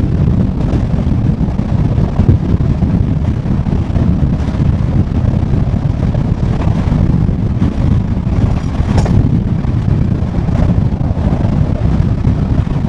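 Sleeper train running at speed, heard from inside a passenger coach: a steady, loud, low rumble of wheels on rail with a few faint clicks.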